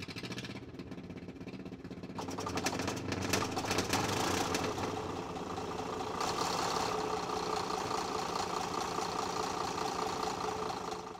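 1965 Caterpillar D8H bulldozer's diesel engine running as the machine is eased forward about half an inch to free the blade pin. It gets louder about two seconds in and then holds steady.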